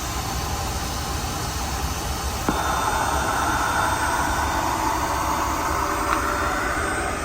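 Boeing 737-9 MAX cabin noise in cruise: a steady rumble and rush of airflow. About two and a half seconds in, a click, then a brighter hiss joins and stops near the end.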